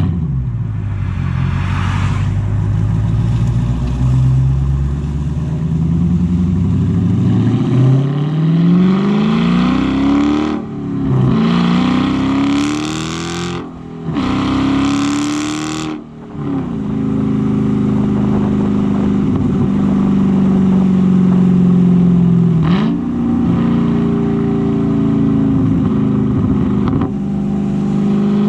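2018 Dodge Challenger T/A 392's 6.4-litre HEMI V8 running through its aftermarket exhaust while driving. It accelerates with the engine note rising several times through the middle, each climb broken by a brief drop as the transmission upshifts, then settles into steady cruising.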